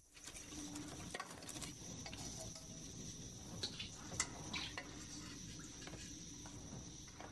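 Kitchen work sounds: a steady hum and hiss with scattered light clinks and knocks of utensils and cookware, the sharpest about four seconds in.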